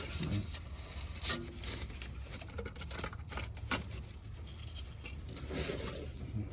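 Scattered light clicks, taps and rubbing as bolts are fitted by hand into a steering box cover, over a steady low hum.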